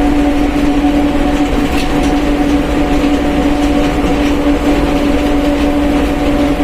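Mercedes-Benz OF1721 BlueTec 5 bus running at a steady speed, its rear differential giving a steady whine over the running noise.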